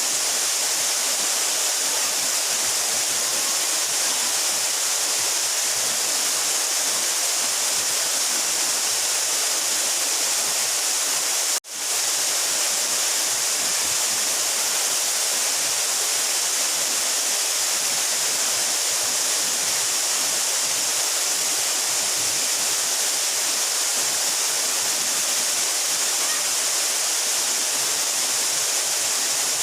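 Mountain waterfall about 12 metres high, a steady, dense rush of falling water with a hiss in the upper range. The sound drops out for an instant about twelve seconds in, then resumes unchanged.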